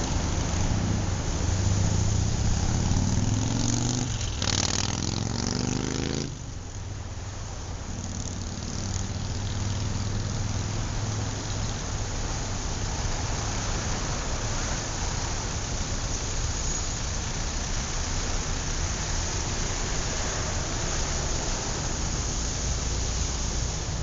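City street traffic: a continuous wash of vehicle engines and road noise. It is louder for about the first six seconds, then drops suddenly and runs on evenly.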